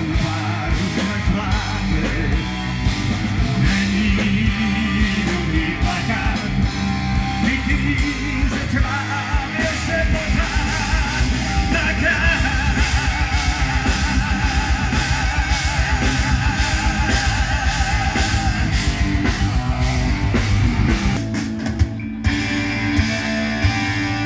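Rock song with singing, electric guitar and a fast, driving drum beat; the music breaks off briefly about two seconds before the end and goes on again.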